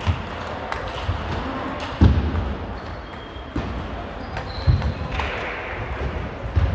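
Scattered sharp clicks of a table tennis ball off bats and table, mixed with a few heavier dull thuds, echoing in a large sports hall.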